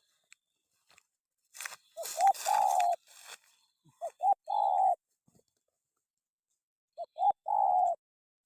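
Spotted dove cooing three times, each phrase two short notes and a longer rolling final note. A rustling noise runs under the first phrase.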